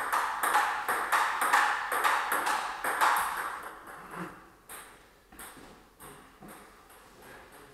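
Table tennis rally: the celluloid ball clicks in quick succession off bats and table, each hit ringing in a hard-walled room. About halfway through the rally stops and only a few sparser, quieter ball bounces follow.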